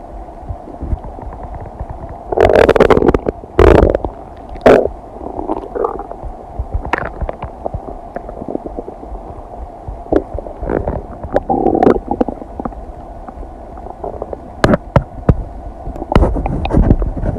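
Human stomach and intestines gurgling while digesting food, in irregular bursts with short popping squelches. The loudest stretch comes a couple of seconds in, with further gurgles around the middle and near the end.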